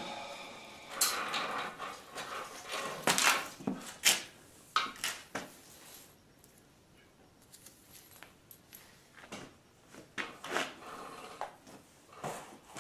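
Garage door opener roller chain rattling and clinking in irregular bursts as it is handled and pulled along the metal rail, loudest in the first few seconds, sparser in the middle, then picking up again.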